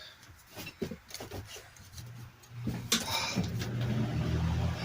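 Electric fan switched on: a click, then a steady low motor hum that builds as the fan comes up to speed, after a few handling knocks.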